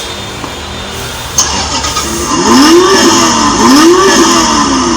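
Children's battery-powered ride-on toy car switched on: a click, then its built-in speaker plays a loud recorded engine-start and revving sound effect that rises and falls in pitch about once a second.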